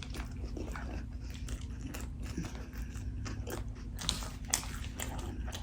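Close-miked eating: a person biting and chewing fast food, with many small irregular wet clicks and crunches.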